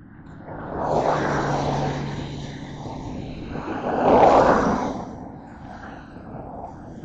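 Traffic on a wet road: two swells of tyre hiss as vehicles go by, about a second in and again past the midpoint, over a low steady engine hum in the first half.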